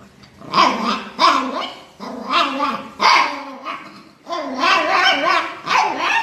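Yorkshire terrier giving a run of wavering barks and yowls, about eight calls in a row with short gaps between them.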